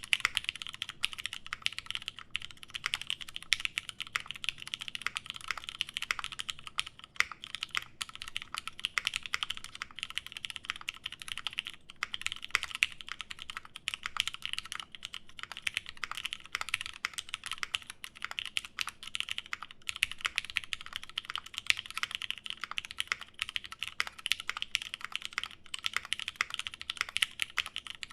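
Continuous typing on a Satisfaction 75 mechanical keyboard with lubed Nixie switches, an FR4 plate and GMK keycaps: a dense, unbroken stream of key clacks.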